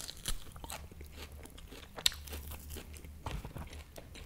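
Close-miked biting and chewing of a tough slice of beef steak (bistec), a run of short crunchy clicks with the sharpest about two seconds in.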